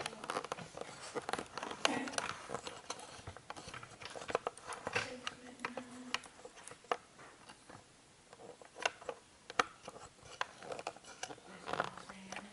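Irregular small clicks and taps scattered throughout, with faint low voices now and then.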